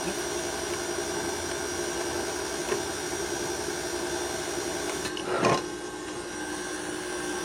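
Electric mixer running steadily as it mixes banana bread batter, a constant motor hum, with a brief louder noise about five and a half seconds in.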